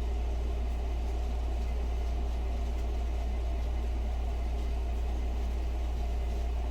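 Electric gooseneck kettle heating water, well short of the boil: a steady low hum with a faint even hiss.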